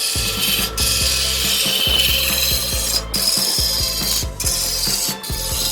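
Lathe turning tool cutting into spinning wood, a continuous rough scraping hiss over the steady hum of the lathe motor. The cut breaks off briefly a few times as the tool lifts away, about a second in and again near three, four and five seconds.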